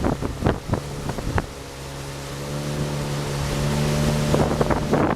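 Speedboat engine running with a steady hum that grows louder over the second half. Wind buffets the microphone, with sharp knocks in the first second and a half.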